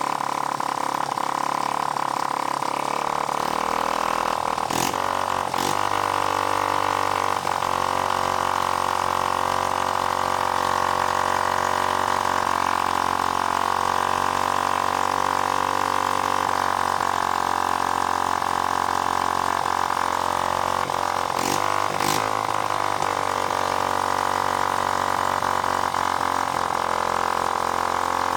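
A 1975 Honda C50's small single-cylinder four-stroke engine running on a bench, lumpy and in need of carburettor adjustment. Its speed shifts several times as the carburettor is adjusted, with two pairs of brief sharp pops along the way.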